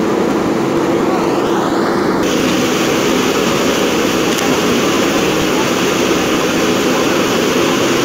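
JCB 3DX backhoe loader's diesel engine running steadily under load while the backhoe arm works the bucket through soil and bamboo roots.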